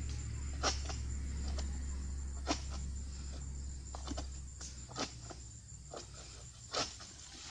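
Sharp knocks about once a second as a long-poled harvesting sickle hacks at an oil palm's fronds and fruit-bunch stalk, over a low steady rumble that fades about two-thirds of the way through.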